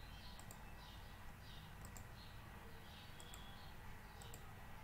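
Faint computer mouse clicks: four short double clicks, each a press and release, spaced a second or more apart.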